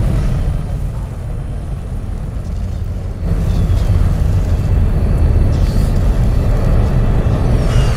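Steady low rumbling jet-thruster sound effect for an armored suit hovering on jets from its boots and hands. It grows louder a little after three seconds in.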